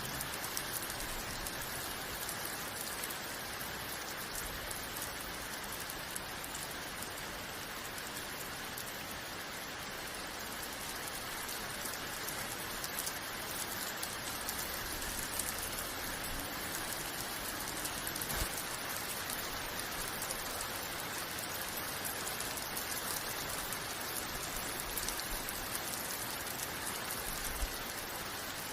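Steady rain falling, a dense even hiss of drops on surfaces with scattered individual drop ticks.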